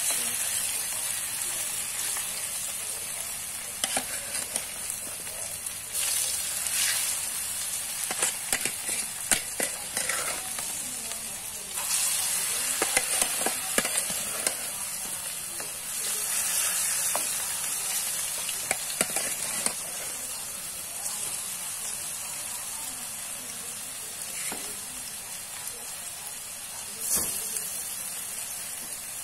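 Tempeh slices deep-frying in hot oil in a wok, a steady sizzle that swells several times, with scattered crackles and clicks.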